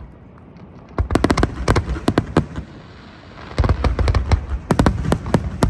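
Fireworks display: aerial shells bursting. Quick volleys of sharp crackles start about a second in and come again near the end, with a deep boom a little past halfway.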